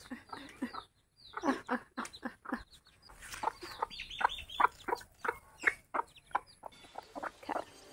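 Mother hen clucking in a long run of short calls, several a second, with her chicks close by as rice grains are scattered for her: the hen's food call, which brings the chicks to the grain.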